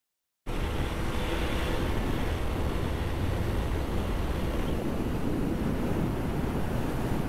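After half a second of silence, a KTM Duke 250 motorcycle is heard riding at speed: steady wind rush on the microphone over the engine's even drone.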